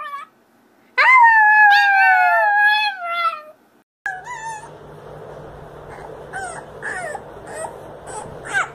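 A Chihuahua gives one long howl, about two and a half seconds, sliding down in pitch. After a short break, a beagle puppy gives a run of short, high, wavering yips and little howls.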